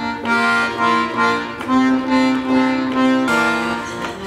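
Piano accordion playing a simple melody of held reed notes, one note after another in an even rhythm, played by someone trying the instrument for the first time.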